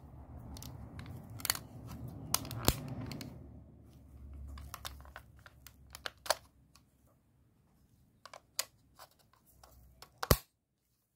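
Handling noise from a Sony WM-EX382 Walkman's plastic casing turned over in gloved hands: rubbing and rustling with a scatter of sharp plastic clicks, as the battery compartment door is shut. The loudest click comes near the end.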